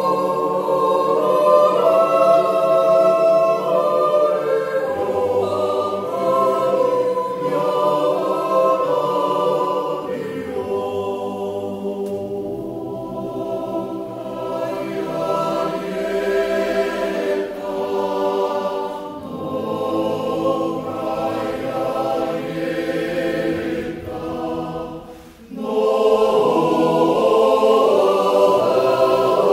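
Mixed choir of men's and women's voices singing slow, sustained chords a cappella in a reverberant church. About 25 s in the chord breaks off briefly, then the full choir comes in again loudly.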